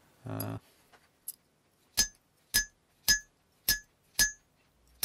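Small hammer tapping a chasing chisel to punch a zigzag pattern into a thin steel plate on an anvil. Five light, even strikes about two a second, starting about two seconds in, each with a short metallic ring.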